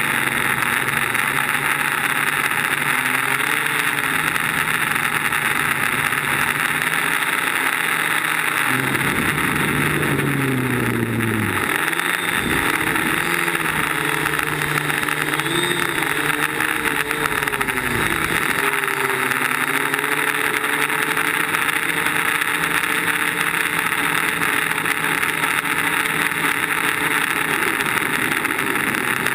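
DJI Flame Wheel quadcopter's electric motors and propellers whining, picked up by the GoPro on board, over a loud steady hiss of prop wash and wind. The motor pitch rises and falls with the throttle, changing most in the middle stretch.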